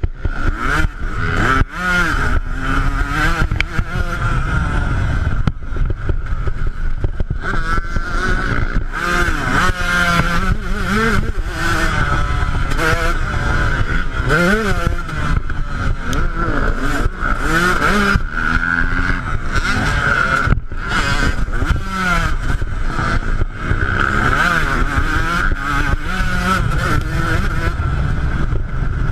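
Yamaha YZ125 two-stroke single-cylinder motocross bike being ridden hard, its engine revving up and dropping back over and over through the corners and straights. The revving is broken by frequent short knocks.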